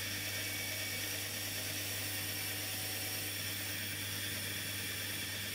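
Bandsaw running steadily with its blade cutting through a wooden block: an even whir over a constant motor hum.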